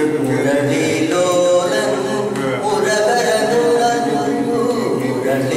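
A man singing a Malayalam song unaccompanied, solo voice with no instruments. The notes are held long and slide up and down in pitch.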